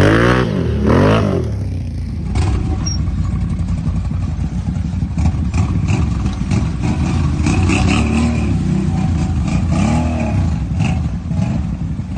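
Can-Am ATV engines revving in a muddy creek: revs swing quickly up and down in the first two seconds as one machine climbs out, then a steadier run with a few short rev blips in the second half.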